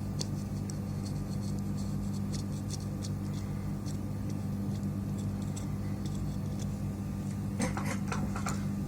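Small scattered clicks and ticks of hand-tool soldering work on a fluxed circuit board, over a steady low bench hum. The clicks thicken into a brief burst of handling noise near the end.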